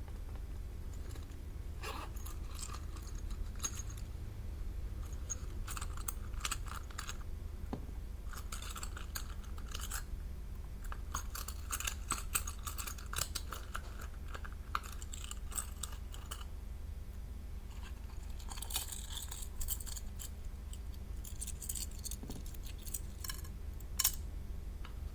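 Slime being worked by hand or with a tool: irregular crackles, clicks and short crunchy rustles come and go, over a steady low hum.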